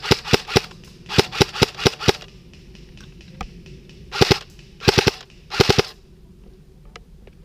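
HK416 airsoft replica firing: two quick strings of about five shots each at four to five a second, then, after a pause, three short bursts of two or three shots about two-thirds of a second apart.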